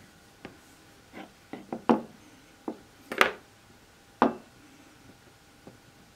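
Light, irregular clicks and taps of metal tweezers and a small copper cabochon being handled on a cutting mat, about ten in all, with a few sharper ones in the middle.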